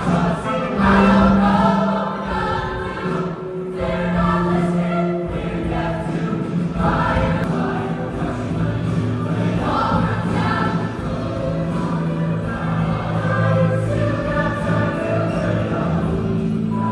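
A choir singing long held notes in several voices at once, the chords changing smoothly every few seconds.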